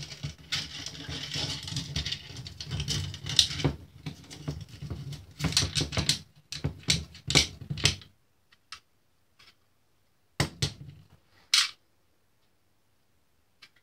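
Phonograph mainspring from a Cecilian two-spring motor being coiled by hand into its barrel: the steel spring clicks and scrapes against the barrel in a quick rattling run. It stops about eight seconds in, leaving a few separate clicks.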